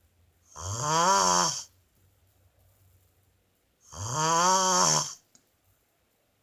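A sleeping woman snoring twice, about three seconds apart, each snore a loud drawn-in breath of about a second whose pitch rises and then falls.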